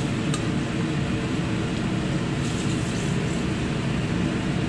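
Steady low rushing noise of the stove heating a wok of water with small squid in it, the water not yet at a boil. A single light clink of a metal spatula against the wok about a third of a second in.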